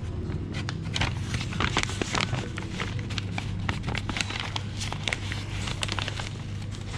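Brown paper bag crinkling and rustling in the hands as it is opened and folded back around a pastry, many quick irregular crackles, over a steady low hum.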